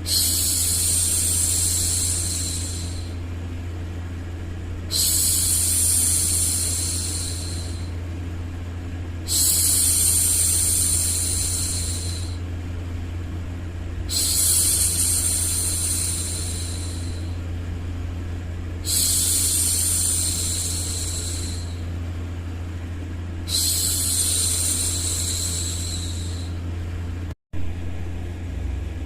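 A woman's long hushing 'shhh' for soothing a baby, repeated six times, each about three seconds long and coming every four to five seconds, over a steady low white-noise hum. The sound cuts out for a split second near the end.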